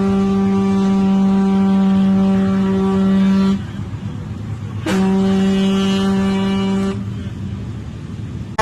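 Ship's horn blowing: one long blast that stops about three and a half seconds in, then a second blast of about two seconds.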